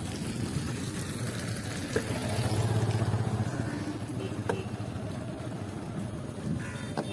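A motor vehicle engine running with a low hum that swells for a second or so about two and a half seconds in, as if passing, with a few light clicks.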